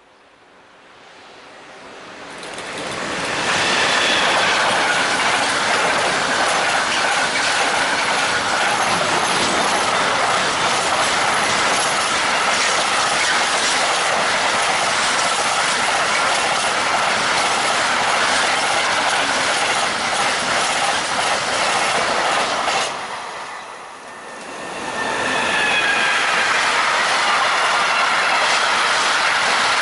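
Electric-hauled freight trains passing at speed on electrified main line: a long container train's wheels rushing on the rails, rising over the first few seconds and staying loud, with high ringing tones over the noise. It drops away for about two seconds near the end, then a second freight train of flat wagons passes just as loudly.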